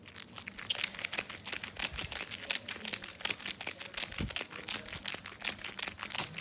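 Plastic wrapper of an Airheads taffy bar crinkling and slapping rapidly as the bar is smacked back and forth against a hand, working the candy down inside the wrapper.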